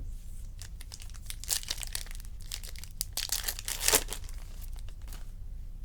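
Irregular crinkling and rustling of wrapper packaging as a box of trading cards is handled, loudest about three to four seconds in.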